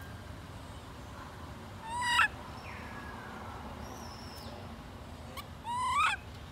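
Baby long-tailed macaque crying: two loud, high cries that rise sharply in pitch, a short one about two seconds in and a longer one near the end. These are the distress cries of an infant left alone by its mother.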